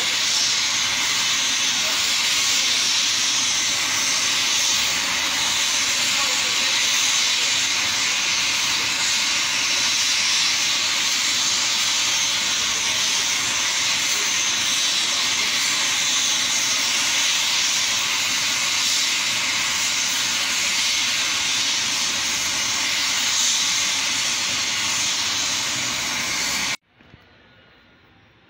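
Military helicopter's turbine engines running on the ground, a loud steady hiss and whine. It cuts off suddenly near the end.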